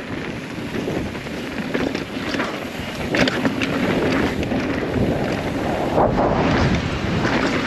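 Mountain bike running fast down a dirt downhill trail: wind rushing over the microphone, tyres on dirt and rock, and the bike knocking and rattling over bumps.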